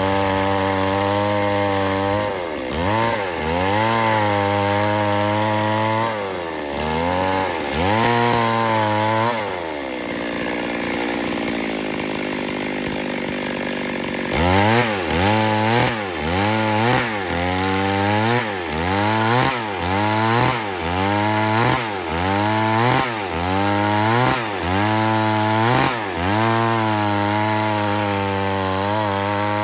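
Two-stroke chainsaw cutting wood, its engine pitch sagging and recovering over and over as the chain bites and eases off. The rhythm is slower in the first third and quickens to about one dip a second after the middle, with a rougher, less even stretch in between.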